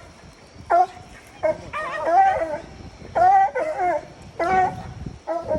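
Coonhound barking repeatedly at a tree, about seven loud barks with one longer drawn-out bawl about two seconds in: the tree bark of a hound with a raccoon treed.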